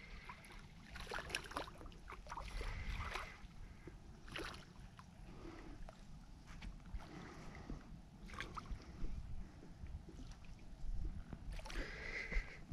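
Intermittent small splashes and water sloshing as a hooked catfish thrashes at the surface beside a kayak, heard as irregular short bursts over a steady low rumble.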